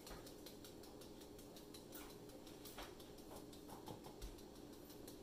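Faint light ticks and taps, a handful in the middle seconds, from a small metal mesh strainer being tapped to dust gold mica over soap in a mold, over a faint steady hum.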